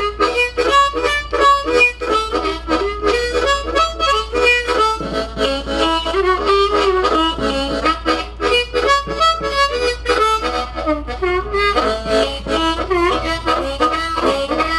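Diatonic harmonica played solo in a choppy rhythmic accompaniment figure, short chords alternating with single notes: the tongue slap technique, where the whole chord is blown or drawn and the tongue then covers it to leave the target note.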